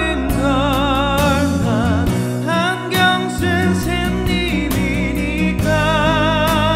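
A male vocalist singing a song over an instrumental backing track, his sustained notes carrying a clear vibrato, with a long held note with vibrato near the end.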